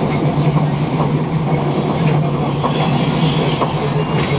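A passenger train running along the line, heard from inside the carriage: steady rumbling running noise with a low hum and a few faint clicks from the wheels on the rails.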